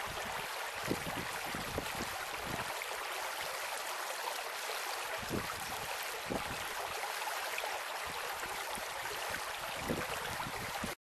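Shallow stream running over rocks: a steady rushing and babbling of water, with a few soft low thumps.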